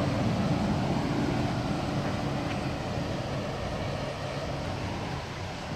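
2007 Hummer H3's five-cylinder engine idling steadily, easing slightly quieter toward the end.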